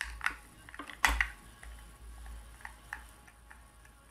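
Screwdriver turning a screw into the underside of a sewing machine foot pedal's housing: irregular sharp clicks and ticks as the tip works in the screw head and the housing shifts, the loudest clack about a second in, then lighter ticks.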